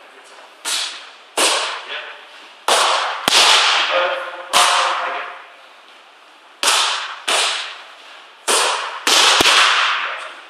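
Boxing gloves landing on leather focus mitts, about ten sharp slapping punches in quick combinations of two and three, each echoing around the hall.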